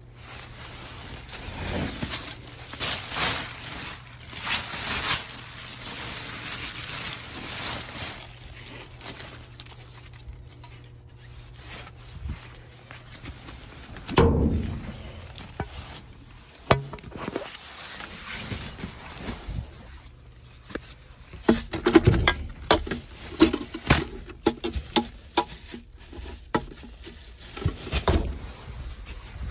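Rummaging through discarded packaging in a dumpster: plastic bags and wrap crinkling and rustling, with knocks and thumps of items being moved. The knocks come more often in the last several seconds.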